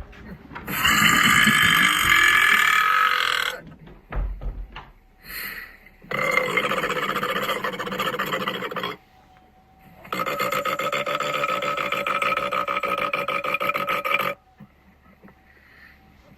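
A person belching: three long, drawn-out belches, each lasting about three to four seconds, with short pauses between them.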